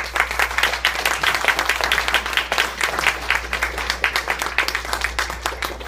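Applause: many quick hand claps overlapping, thinning out near the end, over a steady low hum.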